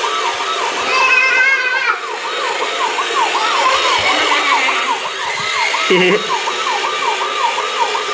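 Electronic siren of a remote-control toy fire engine, a fast wail that rises and falls about three times a second without pause.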